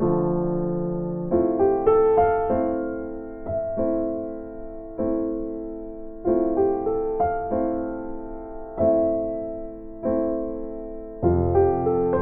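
Background music: a slow, gentle keyboard piece, with piano-like chords struck about once a second, each left to fade.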